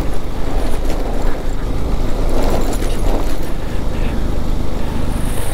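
Motorcycle engine running steadily at low speed under the rider, heard from a camera on the bike or helmet.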